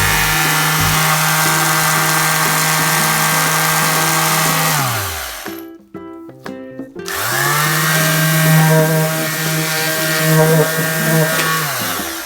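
A cordless drill or impact driver running free with no load: the motor spins at a steady speed, winds down when the trigger is released about five seconds in, then winds back up about two seconds later, runs steadily and winds down again near the end. The motor runs, so the tool works. Light background music plays under it.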